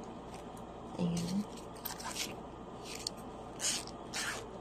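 Faint handling noise of hands working a synthetic-leather sling bag and its fabric-lined zipper pockets: about four short scraping rustles.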